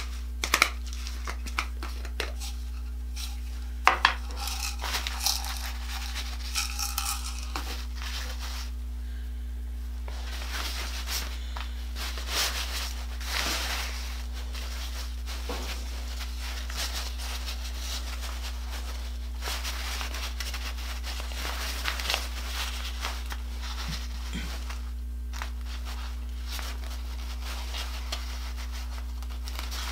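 Crinkly synthetic fabric of a mower leaf drag bag rustling and crinkling as it is handled and its torn edges are pinned together, with scattered small clicks, the sharpest about four seconds in. A steady low hum runs underneath.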